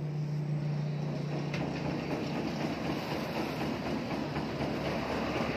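Candlenut sieving machine running on a test, its electric motor driven through an inverter: a steady low hum for about the first two seconds over a continuous rattling mechanical noise.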